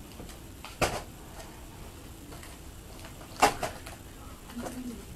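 Two sharp clacks of craft supplies and their packaging being handled and set down, about two and a half seconds apart with the second the louder, with faint rustling between them.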